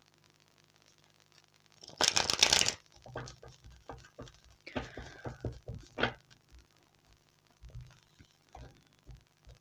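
Tarot cards being shuffled by hand: a brisk burst of shuffling about two seconds in, then a run of short card taps and slaps that thins out to a few soft taps.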